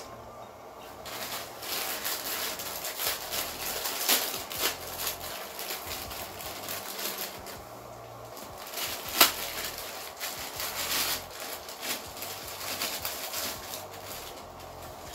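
Plastic instant-noodle packet crinkling as it is handled and torn open, with a sharp crackle about nine seconds in.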